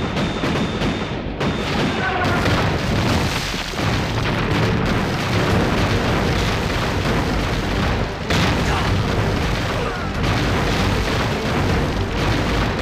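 Artillery bombardment: field guns firing and shells exploding one after another in a dense, unbroken barrage.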